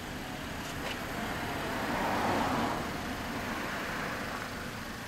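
Passing road traffic: a steady hum of traffic with one vehicle going by, swelling to its loudest about two seconds in and then fading.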